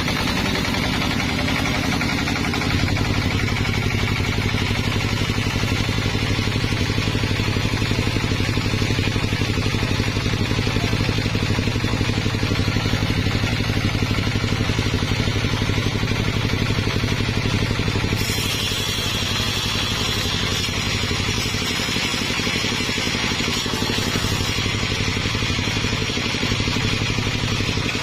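Sawmill engine running steadily with a low hum. About two-thirds of the way through, a higher hiss joins for several seconds.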